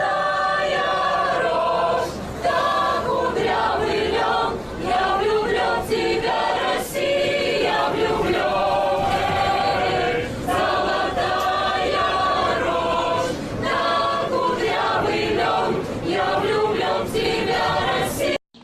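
A choir singing, with a few sharp percussive hits; it cuts off suddenly near the end.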